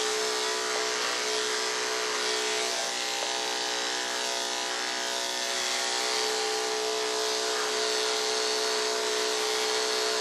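Andis AGC Super electric pet clipper with a ceramic blade running steadily, a constant buzzing hum, as it shaves a cat's fur.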